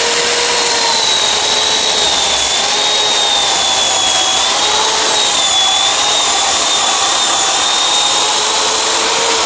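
Chainsaw running at full speed while cutting through a piece of tree wood, a steady whine that wavers slightly as the chain bites. The cut is finished in about five seconds.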